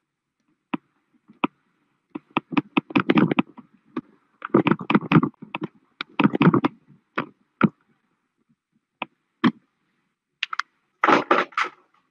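Typing on a computer keyboard: irregular runs of keystrokes, in several bursts with pauses between.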